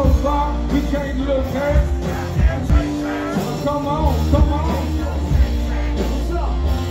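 Live rock band playing loud in a small club, with electric guitar, heavy bass and drums under a man singing into a handheld microphone.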